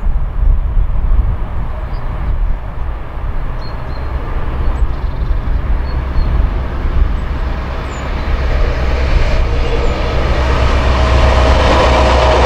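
NOHAB-built diesel locomotive approaching at the head of a freight train, its low engine rumble swelling over the last few seconds. Rail and wheel noise rises as the locomotive and wagons come past near the end.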